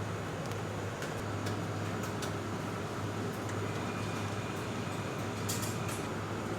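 Steady low machinery hum with an even whir over it, broken by scattered light clicks and taps.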